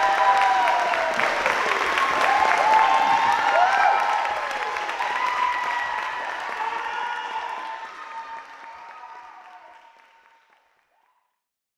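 Audience applauding with cheers and whoops over the clapping, fading away over the last several seconds until it stops about ten and a half seconds in.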